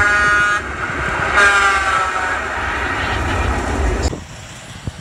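Intro sound effect of a vehicle air horn over a heavy rumbling. One blast cuts off just after the start, and a second, about a second and a half in, drops in pitch as it fades. The rumble stops abruptly about four seconds in.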